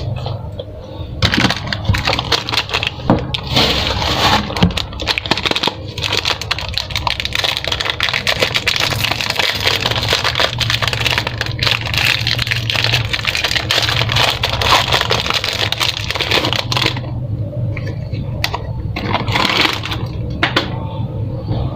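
Candy wrappers crinkling and crackling as they are handled and torn open, a dense run of small crackles that thins out near the end.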